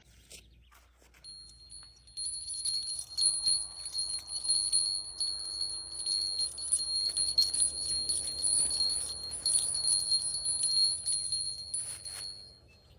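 Electronic fishing bite alarm giving one continuous high tone for about eleven seconds, over light crackling clicks.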